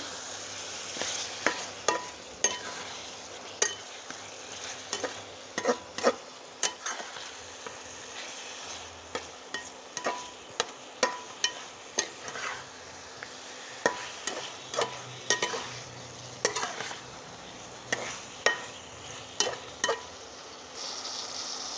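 Spatula stirring raw marinated chicken pieces into hot masala in a frying pan, with irregular clicks and scrapes of the spatula against the pan over a steady sizzle of frying.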